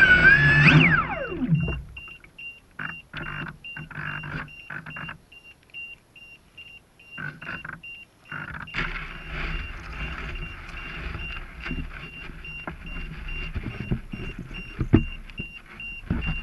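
2Fast2Fun Bullet RC speedboat's brushless electric motor whining at speed, then falling steeply in pitch and dying away within the first two seconds as the boat comes off the plane. The boat then drifts, with water splashing and lapping at the hull, a faint high beep repeating about three times a second, and a couple of knocks near the end.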